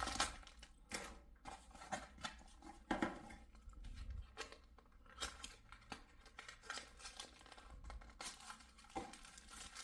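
Packaging of an SSD upgrade kit being handled: irregular rustling and crinkling with scattered light clicks and taps, and a steadier rustle near the end.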